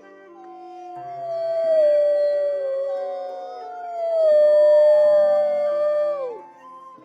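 Wolf howling: two long howls, the first starting about half a second in and sliding slowly down in pitch, the second coming in about three seconds in, held, then dropping away near the end. Soft music with held notes plays underneath.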